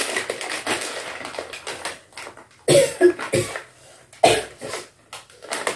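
A woman coughing: several short, harsh coughs about three seconds in, and one more a second later.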